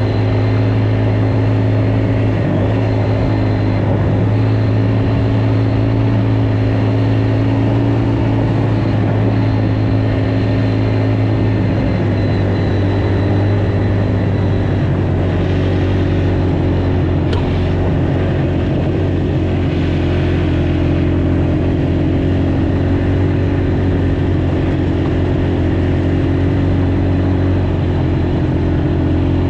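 Small single-cylinder off-road engine running at a fairly steady speed, its note dropping slightly about twelve seconds in. There is a short click about halfway through.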